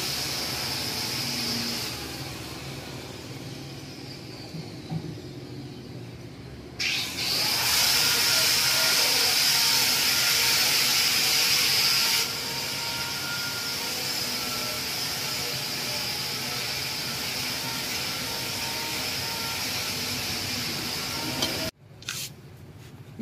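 Steady hissing background noise with a faint low hum. It steps louder about seven seconds in, drops back about twelve seconds in, and breaks off abruptly near the end.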